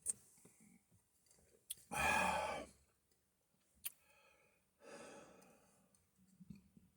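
A man sighs out heavily about two seconds in, then breathes out again more softly about five seconds in, with a couple of sharp clicks between.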